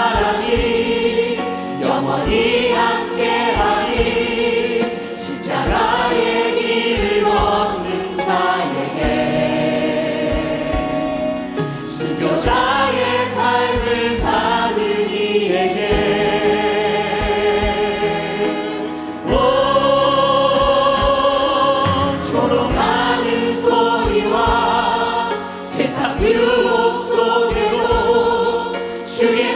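Many voices singing a Korean gospel hymn together, with instrumental accompaniment and a steady drum beat.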